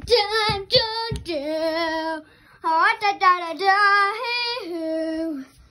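A child singing drawn-out, wavering notes without clear words, in two phrases with a short break about two seconds in.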